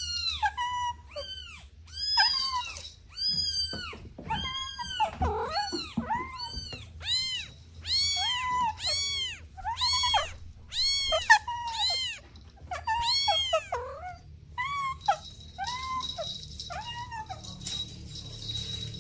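Kittens meowing over and over in high-pitched calls, about one to two a second, each rising and then falling in pitch, sometimes overlapping. The calls thin out after about fourteen seconds, when a steady hiss comes in.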